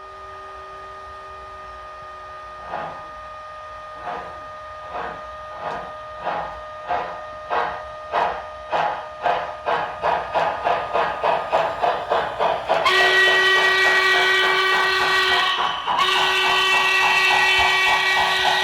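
Sound decoder of an HO scale model steam locomotive playing through its speaker. Exhaust chuffs start slowly a few seconds in and speed up steadily as the engine gets under way. Near the end two long steam-whistle blasts follow, the second coming right after a short break.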